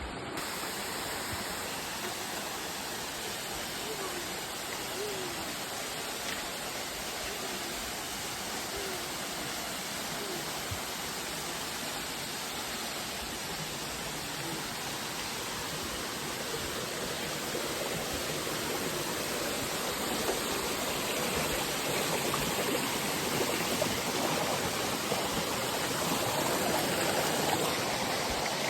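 Steady rush of water falling at a waterfall, growing a little louder in the second half.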